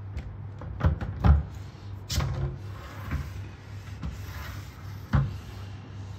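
Sliding panel doors of the storage compartment under a built-in bed base, pushed along their floor track and knocking against the frame: a series of sharp knocks, the loudest about a second in, with a sliding rub between them.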